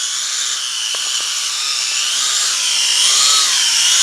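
W606-5 Flanker toy quadcopter's motors and propellers whining as it takes off and flies, the pitch wavering up and down as the throttle changes and growing louder.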